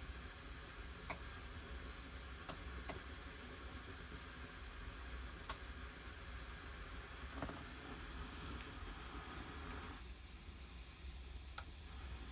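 Faint steady hiss and sizzle from a Russian Primus PT-2 gasoline stove being preheated, its alcohol priming flame burning in the cup under the burner head, with a few small, sharp ticks along the way.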